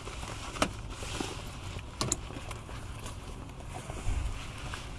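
A bag being handled and set into an open car hatch: a few sharp clicks and knocks over a low steady rumble.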